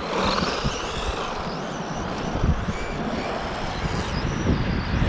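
Electric RC truck with a brushless motor being driven hard. The motor's high whine rises and falls in pitch as it speeds up and slows down, over a rough, noisy rumble with a few knocks.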